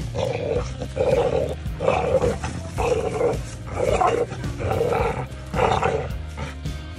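Dog growling in short, loud pulses about once a second while tugging on a rope-tied puller toy, stopping about six seconds in.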